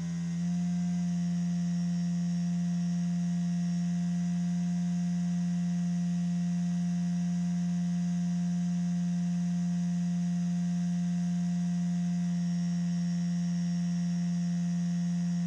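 CNC 3018 router spindle motor running at a steady speed: a steady hum with a high whine above it, beginning to wind down at the very end. This is a noise test with igus drylin bearings freshly fitted on the Z axis; the spindle is still not silent, but much less bad.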